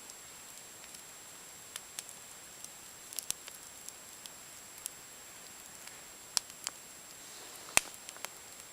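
Small wood campfire crackling: scattered, irregular sharp pops and snaps over a faint steady hiss, the loudest pop near the end.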